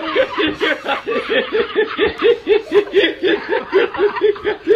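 A man laughing in a long unbroken run of short 'ha' pulses, about four or five a second, at an even pitch.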